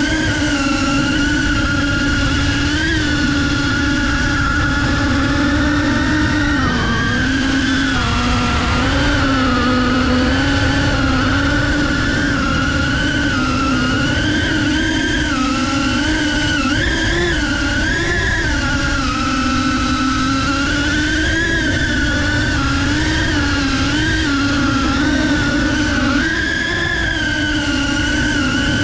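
FPV quadcopter's brushless motors and propellers whining, the pitch rising and falling constantly with throttle as it manoeuvres, over a steady low rush of air.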